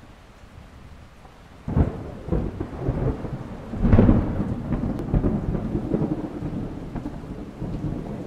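A deep, noisy rumble over a steady hiss, with no tone in it. It swells suddenly about two seconds in, surges to its loudest about four seconds in, then keeps on rolling.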